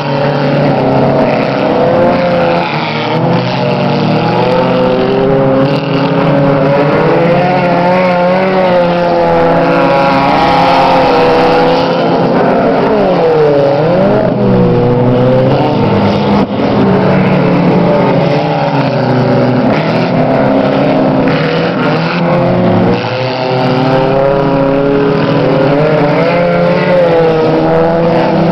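Several dirt-track race cars' engines running hard, their pitches rising and falling as they lap and overlap. About halfway through one car passes close, its engine note dipping and then climbing again.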